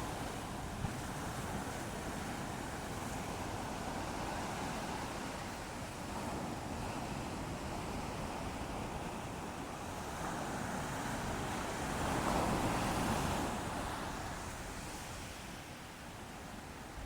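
Ocean surf: waves washing in a steady hiss, with one wave swelling louder about twelve seconds in and then easing away.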